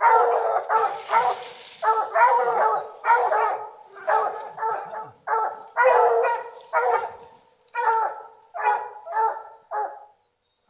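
Bear hounds barking over and over, about two barks a second, until the barking stops shortly before the end.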